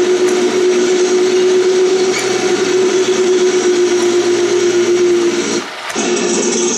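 Recorded Tiger I tank engine sound effect playing through the small speaker of a Heng Long RC tank, a steady engine running with a humming whine. Near the end the sound briefly dips and then carries on as a different engine sound without the whine.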